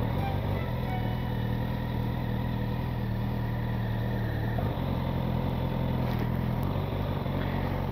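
Suzuki GSX-S1000's inline-four engine running steadily on the move, with a steady rush of wind and road noise; the engine note wavers briefly about halfway through.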